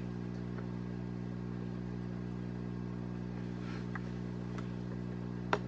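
Steady low electrical hum from aquarium equipment, with a faint hiss, and one sharp click about five and a half seconds in.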